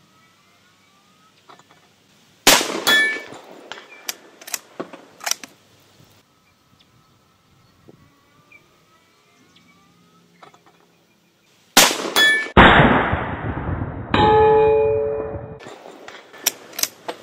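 Short-barrelled .308 bolt-action rifle with a muzzle brake firing at a steel silhouette target, the plate ringing with a clang as the bullets strike it. Two loud bursts of cracks, about two and a half seconds in and again about twelve seconds in, the second followed by a longer ringing tone.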